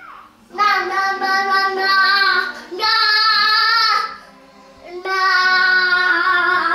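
A high, child-like voice singing long held notes with a slight waver, in three phrases with short breaks about four and five seconds in.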